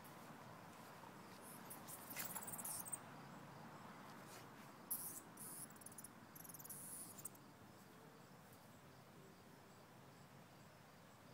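Short bursts of hissy rustling as a small dog noses and paws through lawn grass, with faint, evenly repeating insect chirping in the background.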